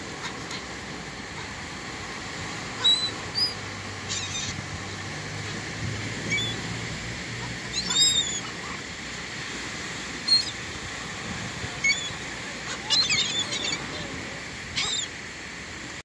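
Gulls giving short, high squealing calls every second or so, several in quick succession near the end, over a steady hiss of surf.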